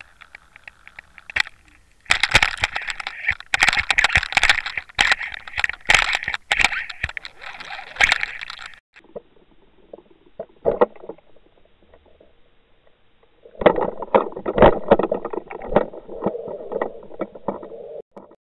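Water rushing and crackling against an underwater camera housing towed on a trolling line, with dense sharp knocks and rattles in two loud stretches, the second about 14 s in, as a pike strikes and shakes the lure.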